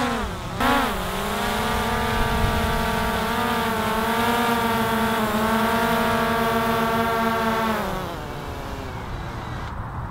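DJI Mavic Air 2 drone's propellers whining as it comes down to a hand catch. The pitch dips and recovers within the first second, then holds steady. About eight seconds in, the pitch falls away as the motors spin down once the drone is caught in the hand.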